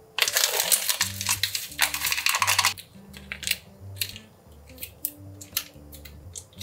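Foil and plastic ramen seasoning sachets crinkling as they are handled for about two and a half seconds, then a few short crackles as a sachet is torn and squeezed out over the pot, over soft background music.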